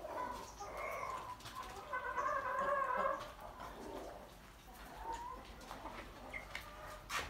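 Chickens clucking and calling, with a longer wavering call about two to three seconds in and a shorter one near five seconds.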